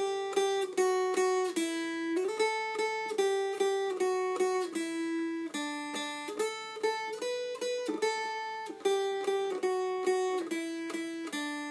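Mountain dulcimer strummed note by note, picking out a simple melody by ear: the pitch steps up and down a scale, changing every half second to a second, with repeated strums on each note.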